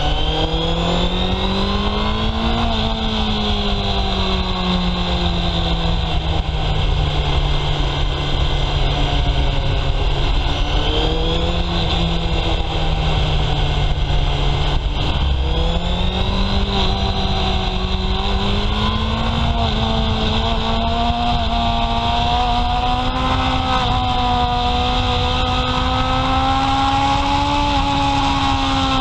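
Honda CB750 Sevenfifty's 747 cc air-cooled inline-four with stock exhaust, running while riding. The engine note climbs for about two seconds, drops back and holds steady, then rises slowly again through the second half.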